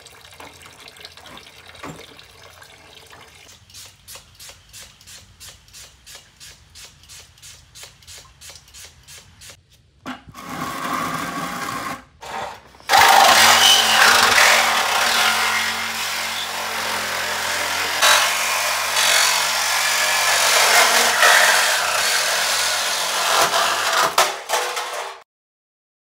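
Tool work on a car's front end: a steady run of clicks, about four a second, then a loud, steady power tool running for about twelve seconds before it cuts off suddenly.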